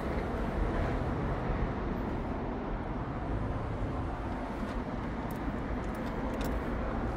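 Steady low outdoor background rumble, with a few faint clicks in the second half.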